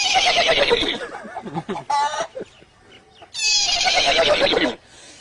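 A man imitating a horse's whinny with his voice, twice: two long, shaky calls that fall in pitch, the second starting about three and a half seconds in.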